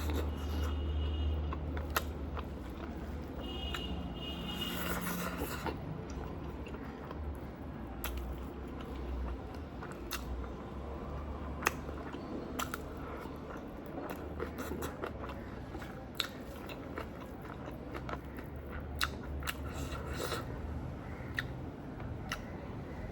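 Close-up mouth sounds of eating chicken biryani: chewing and biting, with scattered wet clicks and smacks. A steady low hum runs underneath.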